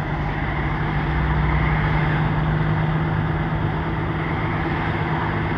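Truck engine running steadily, heard inside the cab: a steady low hum with a constant drone and an even rush of noise.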